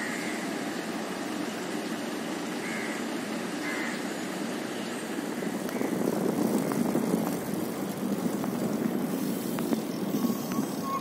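Steady low rumble of city traffic, growing louder about six seconds in, with a few faint short high notes in the first half.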